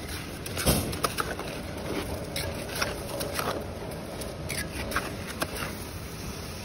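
Steel trowel working wet cement mortar on a brick wall: irregular scrapes and light knocks as mortar is spread along the bricks and scooped from a tub, the sharpest knock less than a second in.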